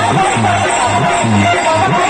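Loud music with a deep bass note repeating in a steady beat.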